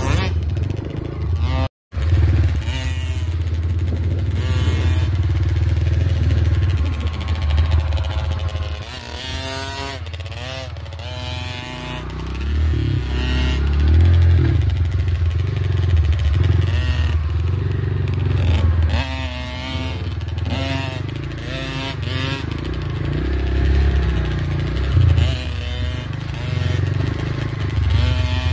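Dirt bike engines riding a wooded trail, the pitch rising and falling again and again with the throttle. The sound cuts out for a moment a little under two seconds in.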